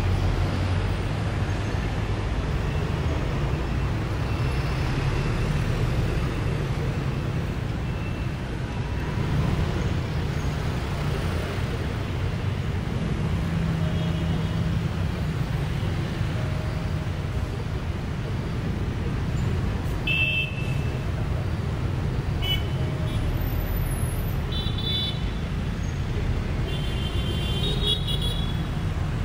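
City street traffic heard from the open top deck of a double-decker bus: a steady rumble of engines. Short vehicle-horn beeps sound several times in the second half.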